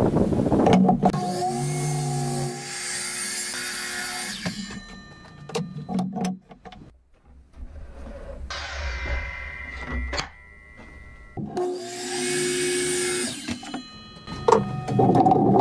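Sliding compound miter saw crosscutting wooden boards: the motor whines up and the blade cuts through the wood at the start, and again from about twelve seconds in. Between the cuts the motor winds down and there are knocks of boards being moved on the saw table.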